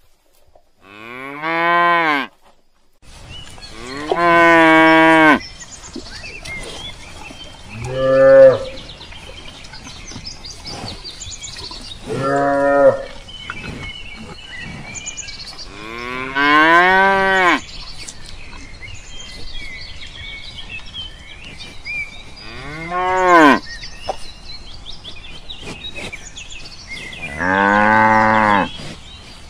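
Cows mooing: seven separate moos, each one to two seconds long, spaced a few seconds apart.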